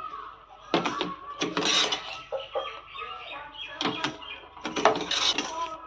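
A spoon scraping and knocking against a stainless steel kadai while thick mango kesari is stirred, in irregular strokes.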